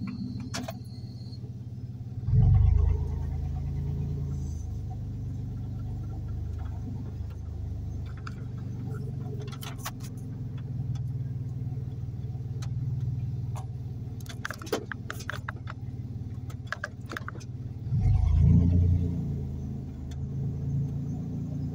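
Car engine and road noise heard from inside the cabin while driving slowly: a steady low hum that swells louder twice, about two seconds in and again near the end. Scattered short clicks and rattles come in between.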